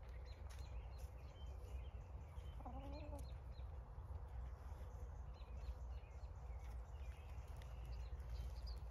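A hen gives one short wavering cluck about three seconds in. Behind it are faint scrapes of gloved hands working loose garden soil and a steady low rumble.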